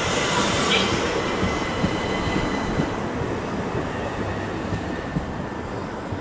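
Passenger train running along the track, a steady rumble with faint high wheel-squeal tones, dying away slowly as it moves off.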